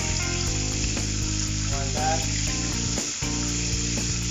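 Rib-eye steak sizzling steadily in hot fat in a frying pan as the fat is spooned over it, with background music playing.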